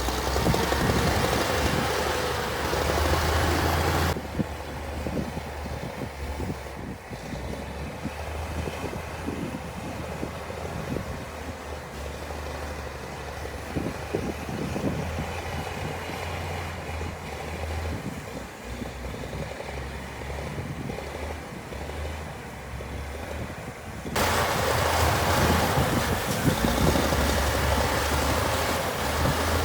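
Heavy diesel earthmoving machinery running with a deep, steady engine rumble. The sound changes abruptly about four seconds in, becoming duller with less hiss, and turns brighter and louder again about twenty-four seconds in.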